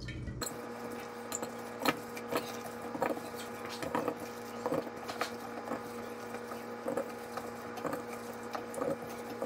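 Apple pieces dropped by hand into a glass jar, giving a run of light, irregular clicks and taps, a few a second, over a faint steady hum.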